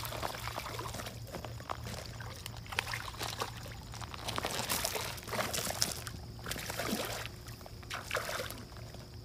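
A hooked sturgeon thrashing at the surface in shallow water, splashing and sloshing in repeated irregular bursts.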